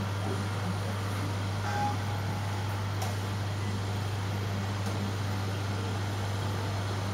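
Aquarium pump running: a steady low electric hum with an even hiss of moving water and air.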